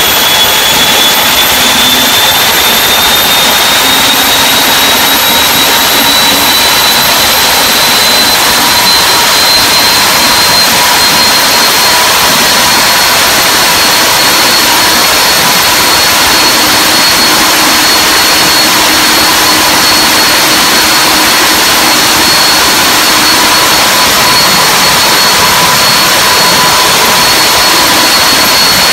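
Turboshaft engine running under test, a loud steady roar with a high whine that rises in pitch over roughly the first twelve seconds and then holds steady.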